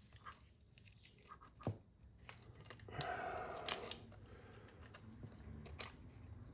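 Faint clicks and handling noises of small tools and parts during an RC car teardown, with a sharp knock nearly two seconds in and a louder scraping rattle about three seconds in that lasts about a second.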